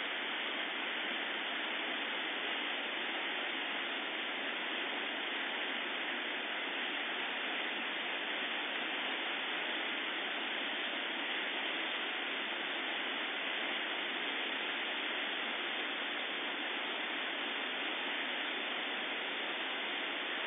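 The flooded Cuyahoga River, high water rushing with a steady, unbroken sound.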